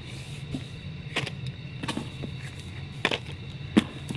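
Comic books being handled and set down on a cardboard box: a few soft taps and paper rustles over a steady low hum.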